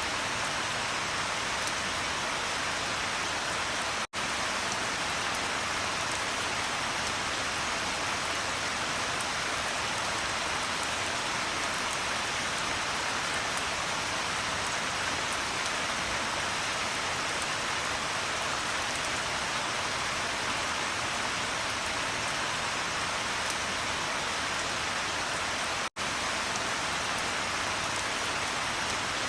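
Steady rain falling on a surface, a dense even hiss of drops. It cuts out for an instant twice, about four seconds in and near the end, like joins in a looped recording.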